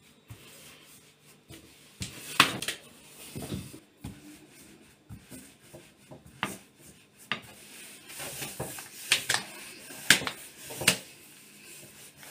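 Long, thin wooden rolling pin (oklava) working a sheet of hand-stretched baklava dough on a floured wooden board: soft rolling and rubbing, with several sharp wooden knocks, the loudest about two seconds in.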